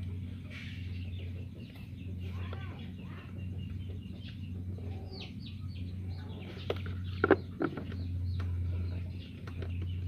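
Hands fitting a motorcycle air filter element and its plastic airbox cover: handling noise, then a few sharp plastic clicks and knocks about seven seconds in. Under it a steady low hum and chickens calling in the background.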